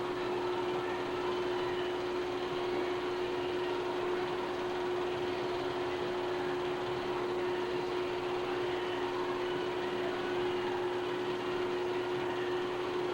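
Steady machine hum and fan-like whir with one constant mid-pitched tone, unchanging throughout: mechanical running noise on a silent 8mm film that has no soundtrack of its own.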